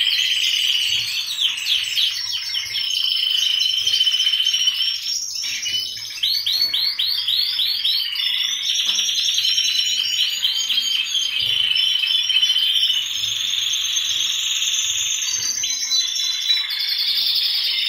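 Many caged canaries singing at once: a dense, continuous chorus of rapid high trills and chirps.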